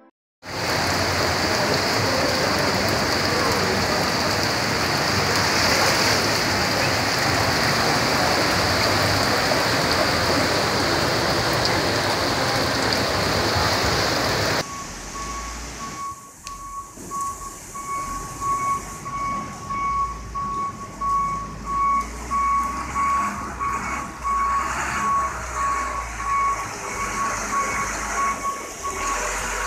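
A steady, loud hiss of floodwater rushing down a street in heavy rain. About halfway through, it cuts to a truck's reversing alarm beeping repeatedly over a low engine rumble and running water.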